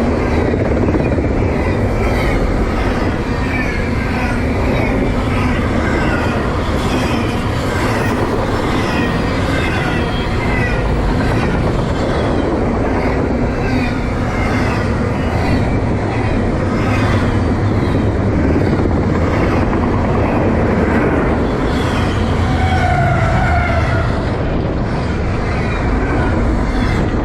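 Intermodal freight train rolling steadily past, its wheels running over the rails with clickety-clack and frequent short, high squeals from the wheels.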